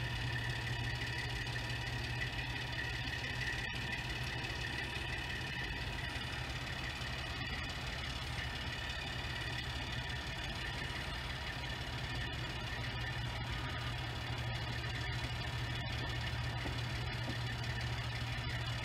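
A mobile crane's engine running steadily at idle: a constant low hum with a faint steady high tone above it.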